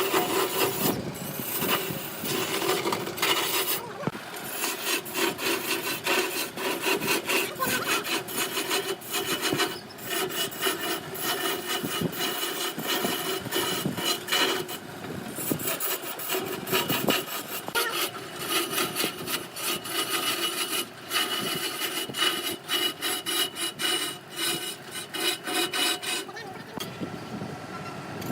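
Wood lathe spinning a workpiece while a turning tool scrapes and cuts the wood: a rough, uneven scraping that rises and falls many times a second over a faint steady hum.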